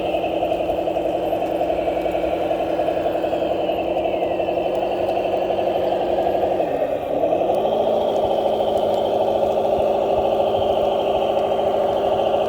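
A 1/14-scale RC construction model running: a steady engine-like drone whose pitch dips briefly about seven seconds in, then comes back up and runs a little louder.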